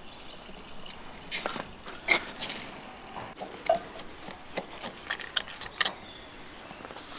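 Irregular wet clicks and smacks of raw camel meat being cut and pulled apart by hand, starting about a second in and stopping near the end.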